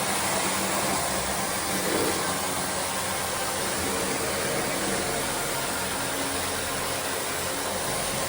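A machine running steadily, a loud even hiss-and-whir that starts abruptly and holds without change.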